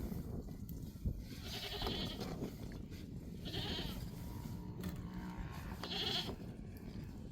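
Goats bleating several times, with a low rumble underneath.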